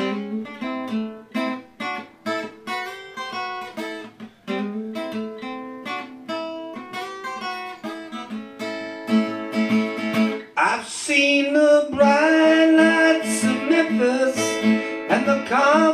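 Acoustic guitar playing a picked and strummed introduction, single notes and chords. About ten and a half seconds in, a man's singing voice comes in over the guitar.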